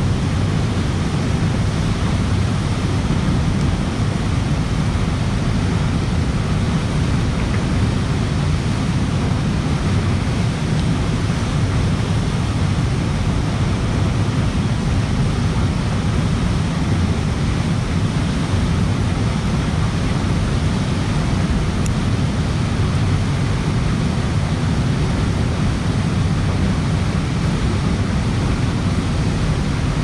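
Steady, unbroken rushing of a fast-flowing river over rapids, heaviest in the low range.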